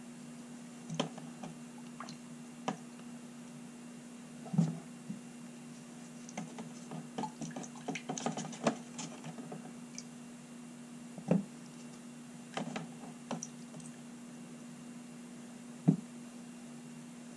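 Small steel revolver parts and gloved fingers clicking and tapping on a paper-covered workbench, with a busy run of light clicks in the middle, over a steady low electrical hum.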